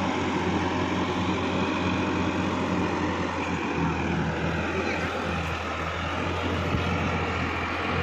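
Sonalika DI-50 RX tractor's diesel engine running steadily as the tractor drives through a flooded, muddy field.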